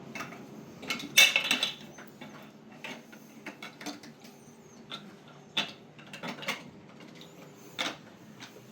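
Small hard game pieces clicking and knocking as they are handled and pulled out, with one louder clatter about a second in and scattered lighter clicks after.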